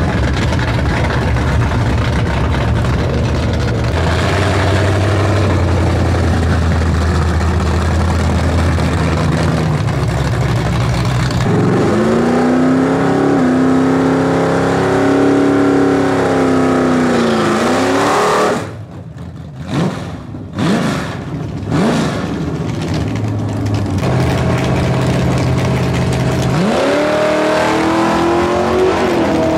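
Ford Mustang II drag car's engine rumbling at idle, then revved and held high for several seconds in a burnout before dropping back, blipped a few times, and idling again. Near the end it revs up hard as the car launches off the starting line.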